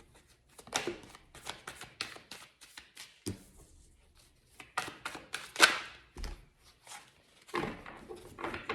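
Tarot cards being shuffled and handled, a string of quick, irregular card snaps and clicks.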